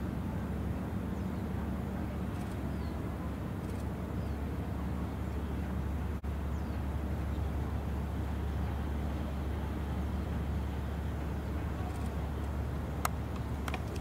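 Low, steady engine drone from the replenishment ship JS Towada under way, heard across the water, with a couple of sharp clicks near the end.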